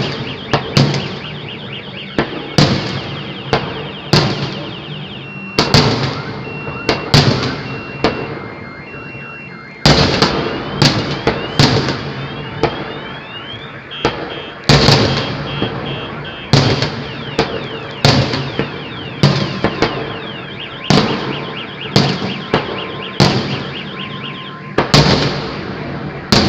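Fireworks display: aerial shells bursting in quick succession, about one to two sharp bangs a second, each with a fading echo, easing off briefly a few seconds before the middle and then resuming.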